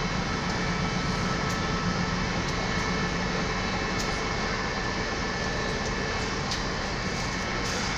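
Steady engine drone of an idling locomotive, with a low hum and a few faint steady higher tones.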